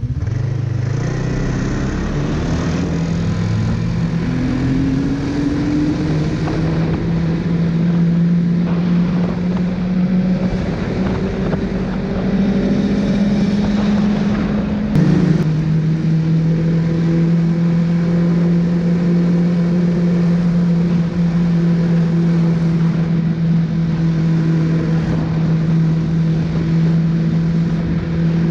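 Snowmobile engine running under way. Its pitch climbs steadily as it accelerates over the first half, drops suddenly about halfway through, then holds a steady cruising note with a constant rushing noise beneath it.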